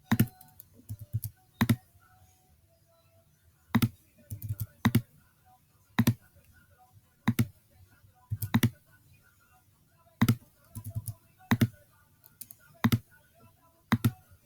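Computer mouse and keyboard clicks: single sharp clicks and short quick runs of two or three, about one every second or so, with faint radio music underneath.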